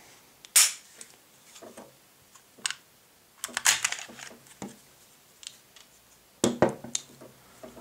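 A first-generation Glock 17 pistol being field stripped by hand: a series of sharp clicks and clacks of metal and polymer as the slide and its locking parts are worked and the slide comes forward off the frame. The loudest clatter comes near the end.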